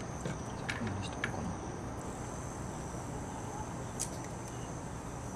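Steady high-pitched insect chirring, typical of crickets, with a few faint light taps as paper and a bamboo skewer are handled on a wooden deck.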